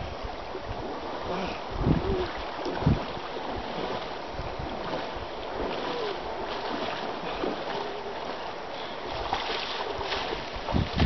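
Wind buffeting the microphone over water lapping at a stony shore, with a few louder splashes near the end as someone wades through the shallows.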